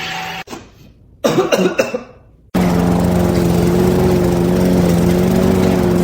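A short, rough burst like a cough about a second in, then after an abrupt cut a steady motor drone with a low hum.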